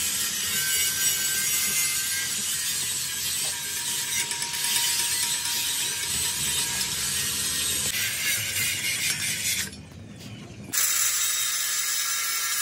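Stick arc welding on a steel truck front axle beam: a steady crackling hiss. After a brief drop about ten seconds in, an angle grinder grinds the steel with a high whine.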